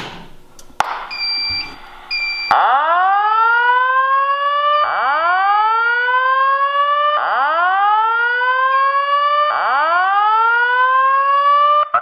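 A click as the pull station is pulled, two short beeps, then a voice evacuation speaker, a Simplex 4902-9717 TrueAlert driven by a Wheelock SafePath panel, sounds a loud rising whoop alert tone. The tone repeats four times, each sweep about two seconds long. It is the alert tone that comes before a chlorine alarm voice message.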